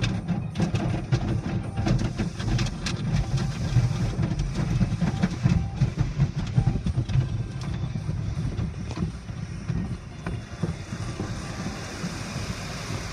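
Automatic car wash heard from inside the car: cloth strips and brushes slapping and rubbing over the windshield and body in quick irregular strikes, over a low rumble of the wash machinery. Near the end the slapping thins out and a hiss of water spray against the glass comes up.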